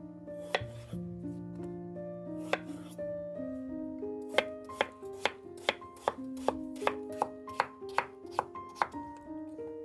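Chef's knife chopping peeled raw potatoes on a wooden cutting board: a couple of single cuts, then from about four seconds in a run of even chops, about two or three a second, that stops about a second before the end.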